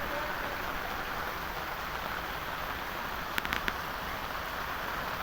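Steady rushing noise of rain and flood water, with a few short clicks about three and a half seconds in.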